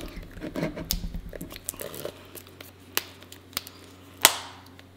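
Fingernails picking and scratching at the seal of a hard plastic container, with scattered small plastic clicks and one sharp, loud click about four seconds in.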